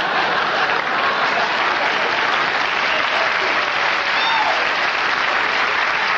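Audience applauding steadily after a stand-up comedy punchline.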